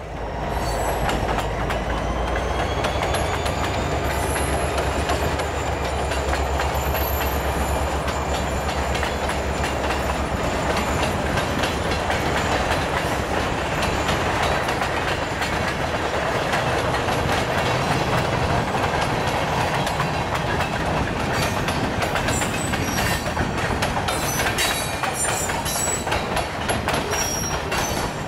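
Freight train of tank cars and coal gondolas rolling past: a steady rumble and rattle of the cars, with the wheels clicking over the rail joints.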